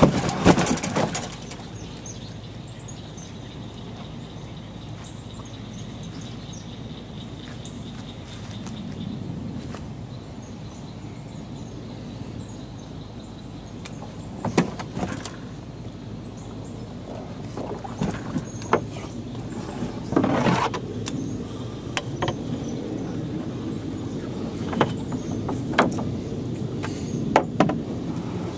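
Outdoor ambience by a pond: a steady low hum with faint bird chirps, broken by scattered sharp knocks and clicks, the loudest right at the start and a cluster in the second half.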